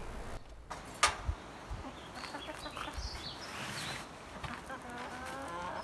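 Backyard hens clucking and calling in a run, with a sharp knock about a second in. Near the end one hen gives a slightly rising call.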